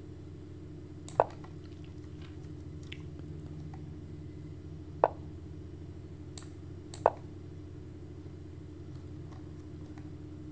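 Move sounds of an online chess board: three short, sharp clicks a few seconds apart, about a second in, about five seconds in and about seven seconds in, each marking a piece being played. Fainter ticks come near them, over a steady low hum.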